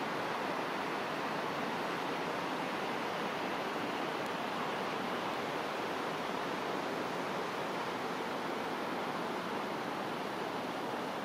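Steady, even rushing of distant glacial meltwater streams and waterfalls.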